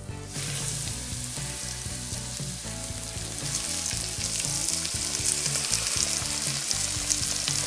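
Flour-dredged pork ribs frying in hot oil in a cast-iron Dutch oven, a steady sizzle as they sear. The sizzle starts suddenly just after the start and grows louder about three seconds in as more pieces are laid in.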